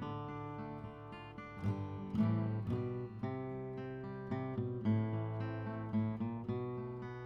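Instrumental music: an acoustic guitar playing held chords and single notes at an unhurried pace, with no singing.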